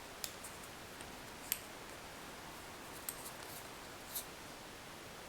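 A few faint, sharp clicks and taps, spaced out, from small parts being handled while a new flat rubber washer is fitted onto a shower valve stem.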